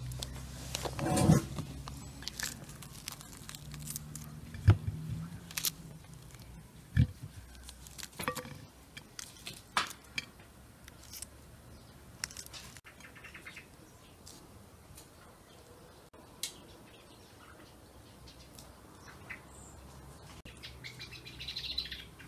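Pomegranate being broken apart by hand and trimmed with a small knife: a run of sharp clicks, snaps and crackles as the rind tears and the knife works against it and the plate, the loudest snaps in the first half.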